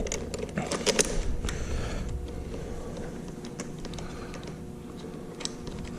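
Light clicks and rattles of small metal parts being handled: handguard mount hardware and bolts being fitted by hand, densest in the first two seconds and then sparse, over a faint steady hum.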